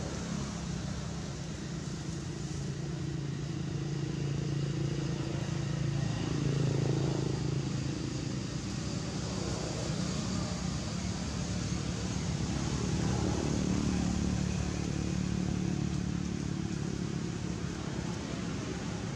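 Low hum of an engine running, growing louder about six seconds in and again about thirteen seconds in.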